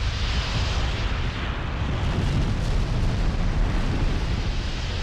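A volcanic eruption: a continuous heavy rumble with a hiss over it, the hiss strongest in the first second.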